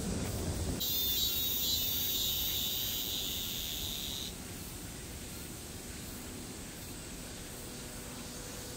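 Insects buzzing in a high, steady drone that starts abruptly about a second in and stops abruptly about four seconds in, over a steady outdoor hiss.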